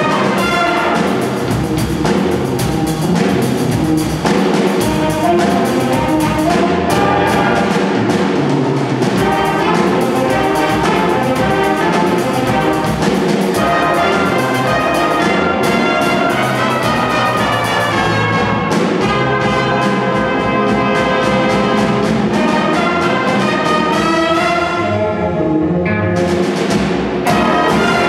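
Jazz big band playing: saxophones, trombones and trumpets over a drum kit, loud and busy throughout. Near the end the band drops back for a moment, then comes in for a last full passage as the piece closes.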